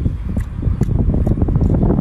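Wind buffeting the microphone as a steady low rumble, with close-up chewing and wet mouth clicks scattered through it.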